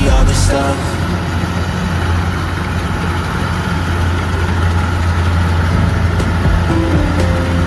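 Rice harvesting machine's engine running steadily with a low, even hum.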